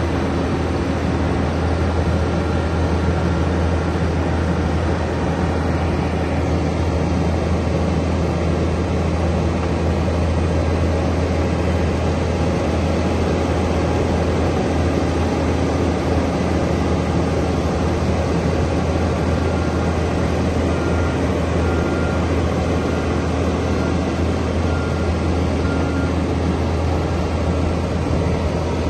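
Diesel engine of a CAT PM-102 asphalt cold planer running steadily, a loud even hum with no change in speed.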